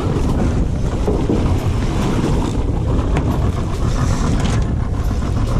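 Wind buffeting the microphone on a boat on the water: a steady low rumble with a few faint clicks.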